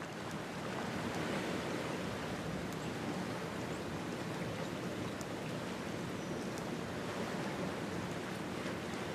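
Small waves washing over a flat rocky shoreline: a steady rush of water.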